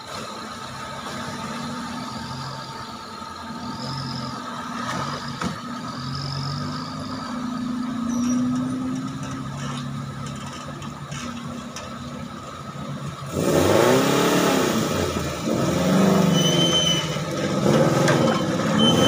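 Off-road Suzuki Jimny 4x4s driving through a shallow river, engines revving up and down. About thirteen seconds in, it gets much louder as a nearer one pushes through the water with repeated revs over the rush of water.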